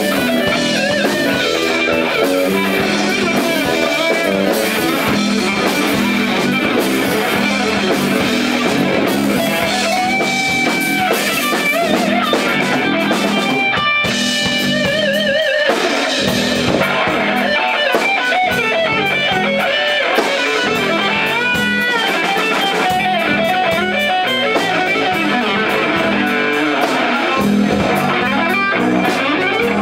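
Live rock band with an electric guitar playing lead lines over drums. About halfway through come held guitar notes with a wide, wavering vibrato.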